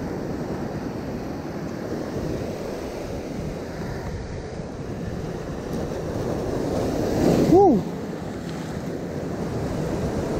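Surf breaking and washing over shore rocks, with wind buffeting the microphone. About three-quarters of the way through, a short squeal rises and falls in pitch over a louder surge of water.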